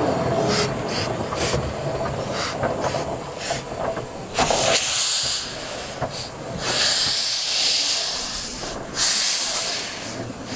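Narrow-gauge steam locomotive moving off with its cylinder drain cocks open: short sharp steam bursts at first, then three long, loud hisses of steam, the middle one the longest.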